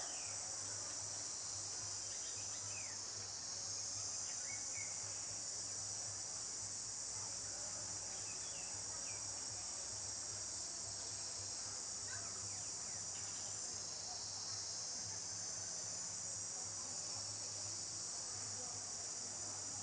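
Steady, high-pitched chorus of insects in the forest, dipping briefly twice, with a few faint short chirps over it.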